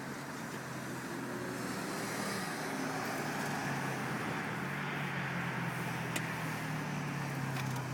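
A vehicle's engine running steadily with a low hum and road-like noise, with a single sharp click about six seconds in.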